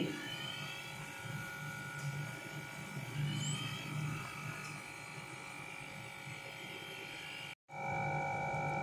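Steady electric motor hum with constant high whining tones. The sound drops out briefly near the end, then comes back with an extra, louder tone.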